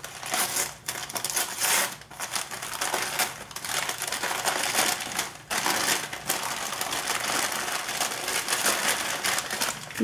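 White packing paper crinkling and rustling in uneven bursts as it is pulled open by hand to unwrap a bromeliad.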